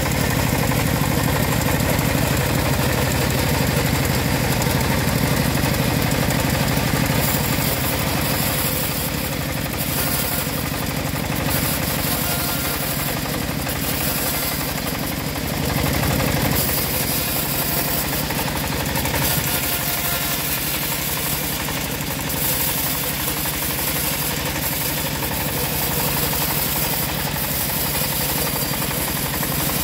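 Home-built bandsaw sawmill running steadily, its blade sawing lengthwise through a dry acacia log: a continuous machine drone with the hiss of the cut, swelling slightly a couple of times.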